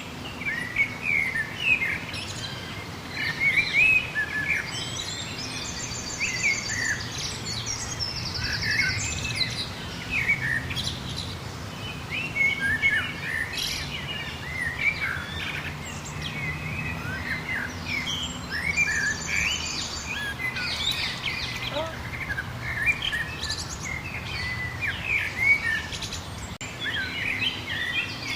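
A chorus of several wild songbirds chirping and singing over one another with many short whistled notes, and a rapid high trill twice, about six seconds in and again near two-thirds of the way through.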